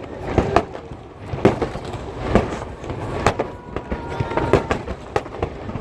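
Aerial fireworks bursting over the harbour: a run of bangs and crackles at uneven intervals, the loudest about once a second, with a faint whistle about halfway through.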